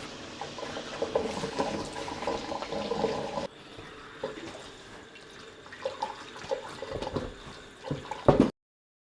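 Running water splashing, like a tap into a sink, with small knocks through it and a couple of sharper knocks near the end. The sound drops abruptly at a cut about a third of the way in.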